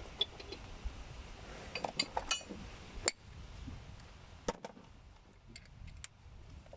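Scattered light metallic clinks and clicks of hand tools being handled, a few separate sharp strikes spread across the few seconds.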